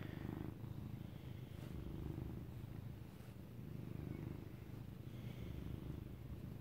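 Domestic cat purring close to the microphone while being stroked: a steady low rumble that swells and eases every couple of seconds.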